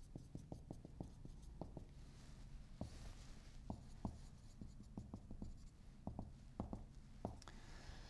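Dry-erase marker writing and drawing on a whiteboard: many faint taps, with longer hissing strokes about three seconds in and again near the end.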